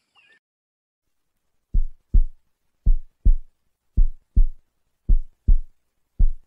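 Heartbeat sound effect: deep lub-dub double thumps, about one pair a second, beginning a little under two seconds in.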